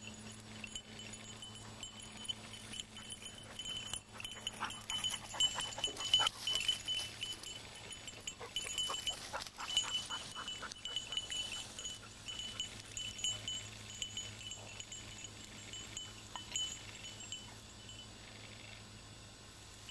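Hunting dog working through dry scrub: a small bell on the dog jingles on and off with rustling, busiest between about four and twelve seconds in.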